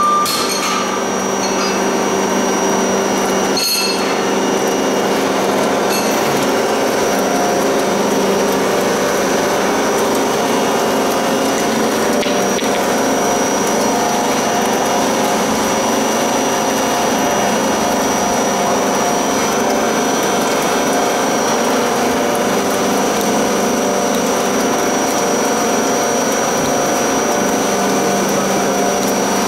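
MK-65 screw oil press running steadily while pressing nigella (black cumin) seed, a constant machine hum with a thin, steady high whine over it.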